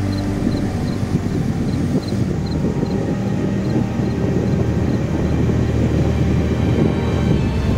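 Background music: a low, sustained droning pad, with a faint regular ticking that fades out a few seconds in.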